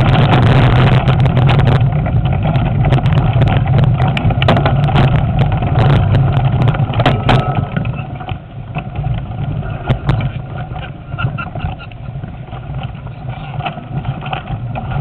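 Wind rumbling over the camera microphone on a moving mountain bike, with rattles and knocks from the bike jolting over a rough trail. It is loud for the first eight seconds or so, then eases and becomes choppier.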